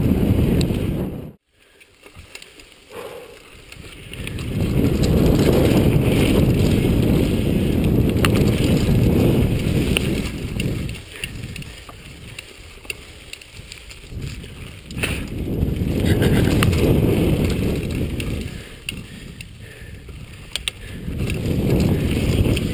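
Chumba VF2 mountain bike descending a dirt trail at speed: tyres rumbling over the ground and wind buffeting the microphone, with a few sharp clacks from the bike over bumps. The noise cuts out briefly about a second and a half in, then swells and fades as the pace rises and falls.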